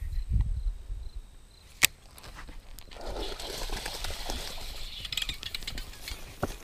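Baitcasting rod and reel handling: a single sharp click about two seconds in, then a rushing splash as a bass strikes the worm at the surface, with quick clicks of the reel being cranked near the end.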